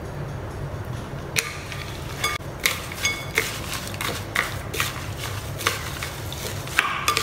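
Plastic spatula stirring rolled oats, sliced almonds and seeds in a glass mixing bowl: irregular scrapes and clicks against the glass, starting about a second and a half in, over a low steady hum.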